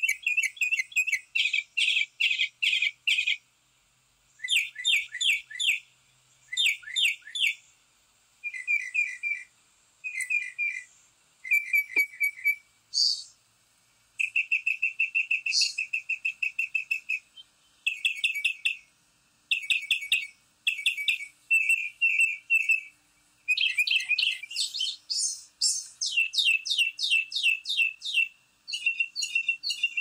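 Backyard songbirds chirping: repeated bursts of rapid high chirps, each lasting a second or two, separated by short pauses.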